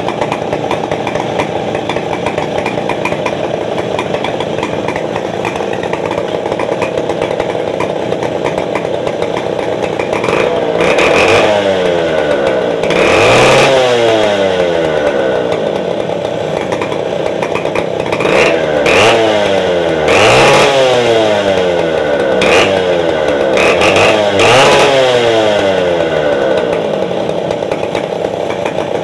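Stihl 070 two-stroke chainsaw warming up: it idles steadily, then from about ten seconds in the throttle is blipped again and again, each rev falling back to idle.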